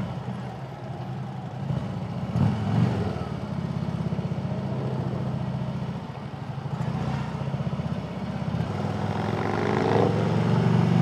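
Harley-Davidson touring motorcycle's V-twin engine running at low speed in slow traffic with a fast, uneven beat, the pitch rising near the end as the bike picks up speed.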